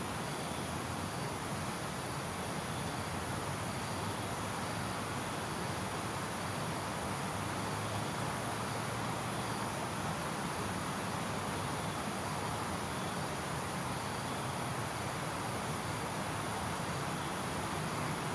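Evening insects, crickets and the like, keeping up a steady high-pitched drone with faint repeated chirps, over a constant broad hiss of distant traffic.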